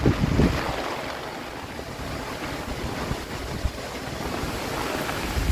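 Strong gusting storm wind, with a nylon flysheet tarp flapping and wind buffeting the microphone in a steady rushing noise. A loud blast of wind hits the microphone right at the end.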